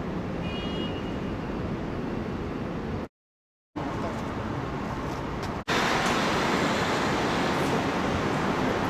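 Steady outdoor road-traffic noise. It cuts out completely for about half a second about three seconds in, and comes back louder and brighter after a sudden break about five and a half seconds in.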